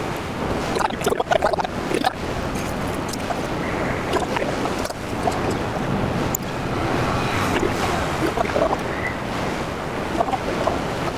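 Ocean surf breaking and washing up onto the beach, with wind buffeting the microphone in irregular gusts.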